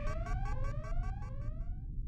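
An electronic alarm of quickly repeating rising tones, about two or three a second, over a steady low rumble. The alarm cuts off just before the end while the rumble goes on.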